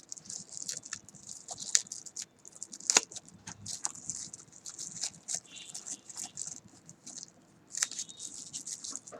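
Packaging being handled and opened by hand: rustling and crinkling with scattered sharp clicks, the loudest click about three seconds in.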